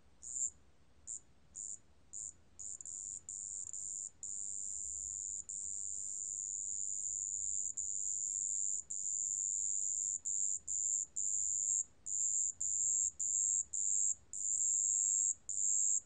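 Song of a 습지방울벌레 (a wetland bell cricket), recorded at 27 °C: a high, pure trill. It starts as short bursts, runs unbroken for several seconds, then breaks into trills of about half a second to a second with brief gaps between them.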